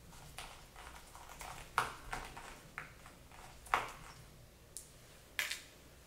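Scattered small, sharp clicks and taps of a screwdriver working on the metal bottom cover of a Dell XPS laptop as it is being removed. They come irregularly, about nine in all, with three louder ones.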